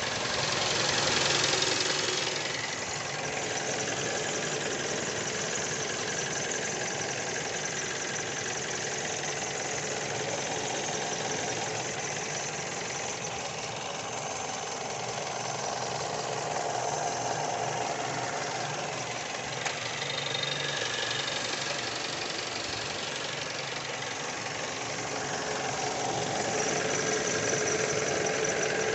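2013 Mazda 6 engine running with a squeak that sounds like a belt squeak; the owner traces it to behind and under the engine.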